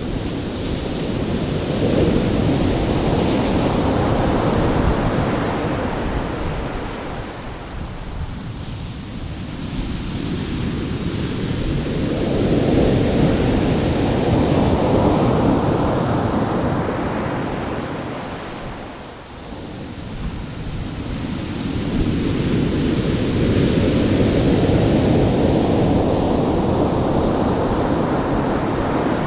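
Ocean waves surging onto the shore and drawing back. Each surge swells to a steady rush and then fades, three times, roughly every ten seconds.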